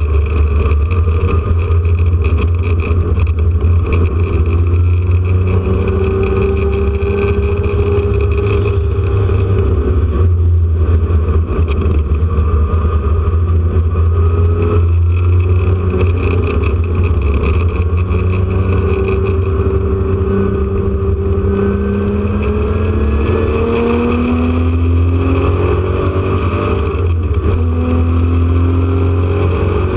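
Porsche 911 RSR's air-cooled flat-six engine heard from inside the car under hard acceleration: its pitch climbs over several seconds, drops at each upshift and climbs again, over a heavy steady low rumble.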